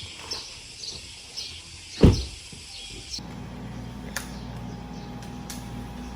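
A bird chirping over and over, about two short calls a second, with one loud low thump about two seconds in. About three seconds in the sound switches abruptly to a steady electrical hum with a few sharp ticks.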